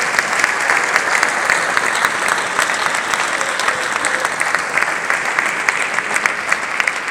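A large audience applauding, dense clapping from many hands, steady throughout.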